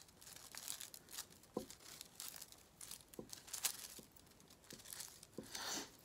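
Faint rustling and crinkling of a ribbon bow as fingers fan out and shape its loops, with scattered short crackles and a few soft clicks.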